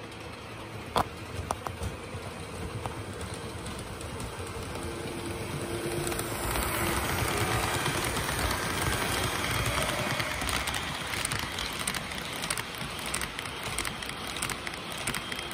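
Model train running along the track past a close microphone, a steady rumble that grows louder about six seconds in as the locomotives and double-stack container cars go by. Wheels tick over the rail joints throughout the pass.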